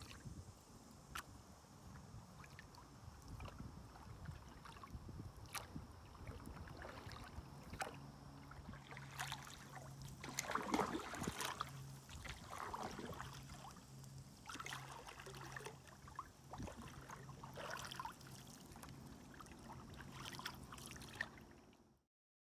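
Canoe paddling: a wooden paddle dipping and pulling through calm river water every couple of seconds, with small splashes and drips, the strongest strokes about ten seconds in. A faint low steady hum runs under the second half, and the sound stops abruptly near the end.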